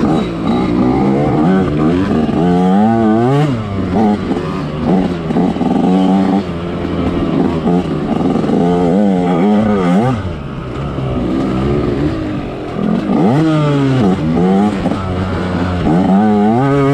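Two-stroke dirt bike engine being ridden hard, revving up and falling back over and over as the throttle is worked and gears change.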